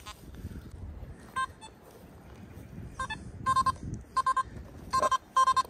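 Nokta Makro Simplex+ metal detector sounding a target: short beeps, all at one pitch. They come singly at first, then in quick pairs from about three seconds in.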